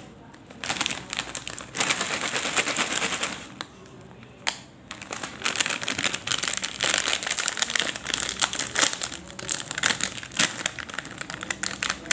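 Foil-lined plastic snack packet crinkling and crackling as it is handled and torn open, in two long stretches with a short pause about a third of the way in.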